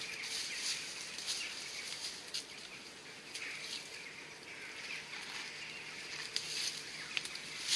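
Footsteps and knees in dry leaf litter, the leaves crunching and twigs rustling and snapping in many short crackles.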